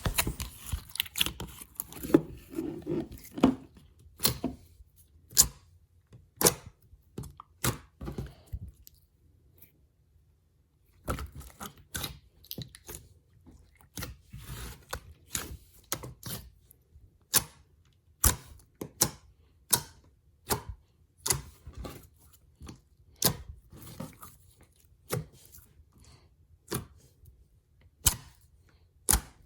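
Slime being poked, pressed and pulled by hand, giving irregular sticky pops and clicks, with a short pause about ten seconds in.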